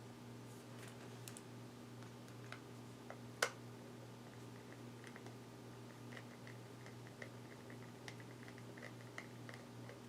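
Small metal screw being tried in a laptop hard drive mount with a screwdriver: scattered light clicks, one sharper click about three and a half seconds in, then a quick run of faint ticks, about five a second, as the screw is turned. A steady low hum runs underneath.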